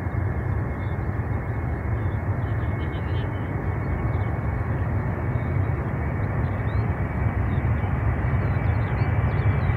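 Boeing 747-400's four jet engines at takeoff thrust during the takeoff roll: a steady deep roar with a thin high whine over it, growing louder near the end as the jet comes closer.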